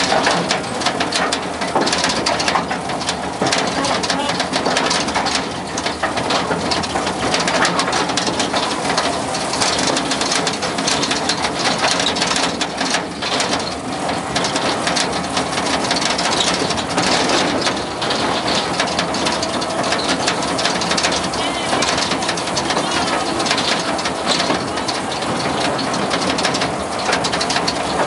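Small tourist train running steadily along its track, heard from an open passenger car: a continuous engine drone mixed with rattling from the car and wheels.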